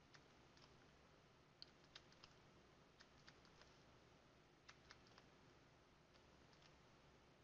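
Near silence broken by a dozen or so faint, scattered clicks and taps of a pen stylus on a writing tablet as numbers are written.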